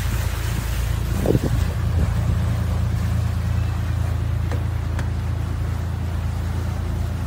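A riverboat's engine running with a steady low hum, heard from on deck, under a light haze of wind and water noise.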